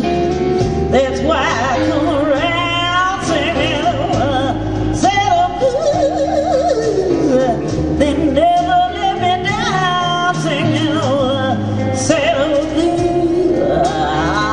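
Live blues band of electric guitar, bass guitar and drums, with a woman singing wordless, sliding vocal lines over it.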